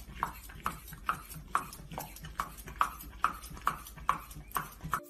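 Vegetable peeler scraping down a raw carrot in quick, even strokes, about two or three a second, stopping suddenly near the end.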